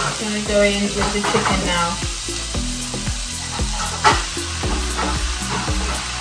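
Onion, garlic, chili and ginger sizzling in hot oil in a frying pan, with diced raw chicken tipped off a plastic chopping board into the pan with a sharp clatter about four seconds in, then stirred. Background music plays underneath.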